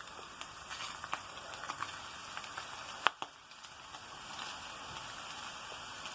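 Chicken flautas (rolled tortillas) frying in hot oil: a steady sizzle with scattered crackles and one sharp pop or click about three seconds in.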